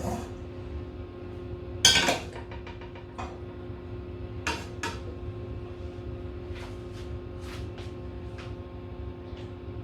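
Cookware being handled: a loud metal clank about two seconds in, two more knocks a little later, then lighter clinks and taps.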